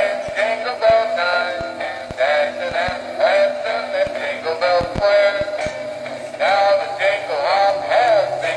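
A high-pitched sung melody with music, like a synthetic or sped-up voice, with short sharp ticks in between.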